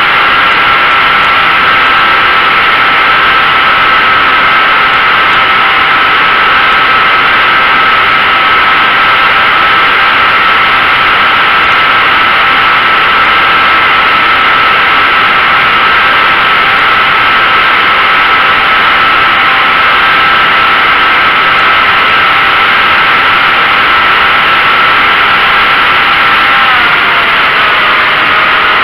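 Motor and propeller of an RC flying-wing model heard from its onboard camera: a steady whine over loud airflow noise. Near the end the pitch of the whine drops as the motor slows.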